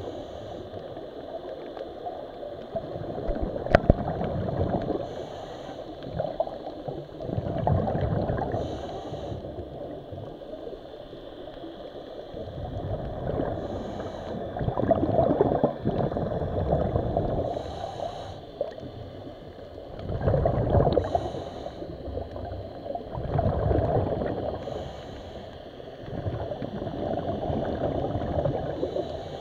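Underwater bubbling and gurgling that swells in surges about every four to five seconds, with a short hiss between surges, in the rhythm of a scuba diver breathing through a regulator.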